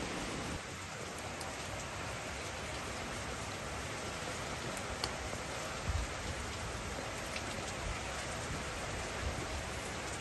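Steady even hiss like falling rain, with a few faint ticks scattered through it.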